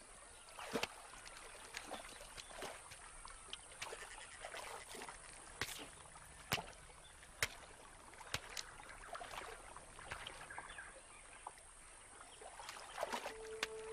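Yacare caimans and fish splashing faintly in a shallow pool: scattered small splashes and sharp clicks of water.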